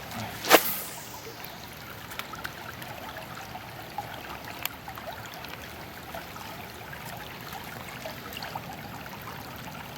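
River water flowing steadily over shallows, with one sharp click about half a second in.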